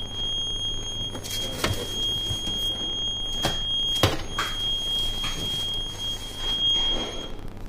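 Deck oven's electronic timer alarm giving one steady high-pitched tone that breaks briefly about four seconds in and stops near the end, over a low hum. A few sharp metal knocks as the baking trays are handled in the oven.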